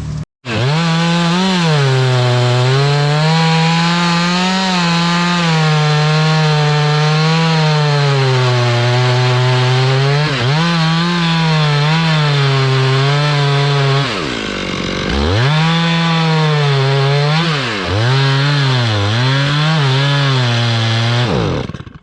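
Gas chainsaw running at high throttle, cutting through a large oak limb. Its engine pitch sags and recovers as the chain bogs in the wood, with deeper dips about ten seconds in and several times in the second half. The saw cuts off just before the end.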